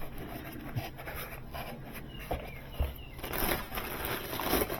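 Small knocks, scrapes and rustling of items being handled and moved about, with a busier stretch of rustling over the last second and a half.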